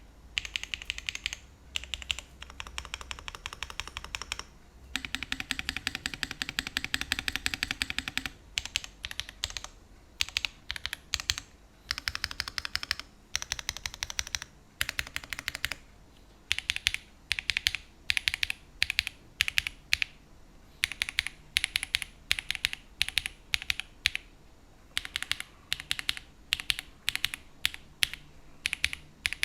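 Typing on a Tofu60 2.0 mechanical keyboard with linear switches: fast runs of keystrokes, clacks with no tactile click, broken by short pauses.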